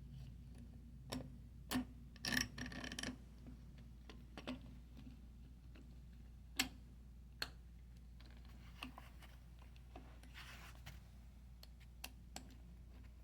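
Scattered small clicks and knocks of caster wheel parts (spacers, wheel and axle bolt) being handled and fitted. A short rattle comes about two seconds in and a brief scraping near the end, over a faint steady hum.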